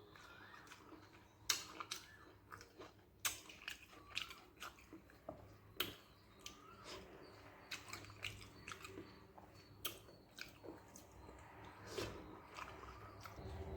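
Close-up chewing and mouth sounds of a person eating rice mixed with a pepper kara kuzhambu of brinjal and okra, with many short, irregular clicks.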